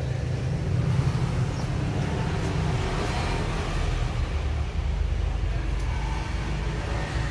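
Steady low rumble, with faint voices in the background.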